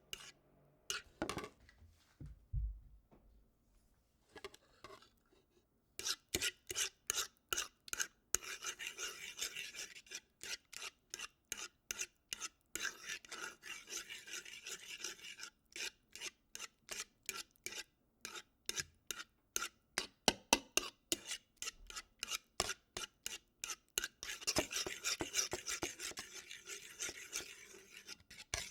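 Scrambled eggs being stirred in a pan: a utensil scrapes across the pan in quick, repeated strokes, about three a second. The strokes pause for a few seconds near the start, then run on and grow denser near the end.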